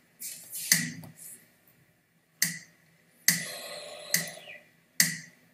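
Five sharp clicks or taps at irregular intervals, some followed by a brief rustle.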